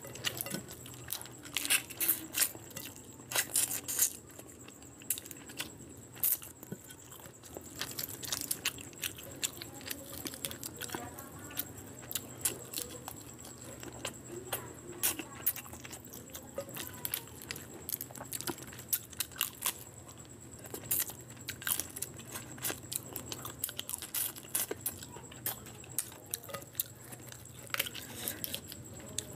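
Close-miked eating sounds: fingers squishing and mixing rice with curry gravy, giving many irregular wet, sticky clicks and smacks, with chewing mixed in.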